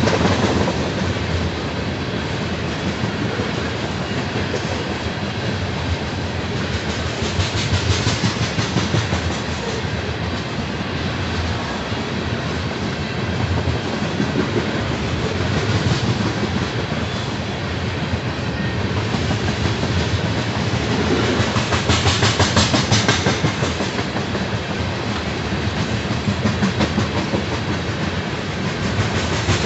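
Railroad tank cars of an oil train rolling past close by: a steady rumble of steel wheels on rail, with repeated clicks as the wheel sets cross rail joints.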